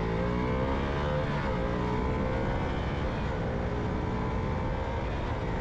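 KTM motorcycle engine running under way during quick upshifts, its pitch dipping briefly near the start and again just over a second in as the revs drop at each gear change and climb again.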